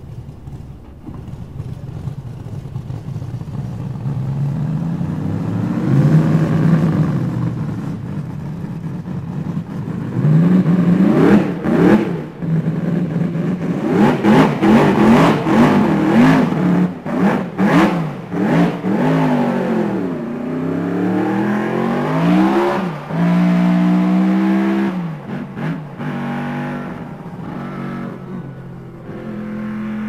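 1953 BRM V16 Mk2's 1.5-litre supercharged V16 racing engine, running at a steady low speed at first and then revved again and again in quick blips that rise and fall in pitch. After a longer high-revving stretch it settles back to a steadier note near the end.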